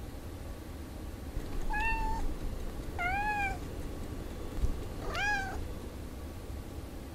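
A cat meowing three times, each meow about half a second long with a rise and fall in pitch, a second or two apart, over a steady low hum.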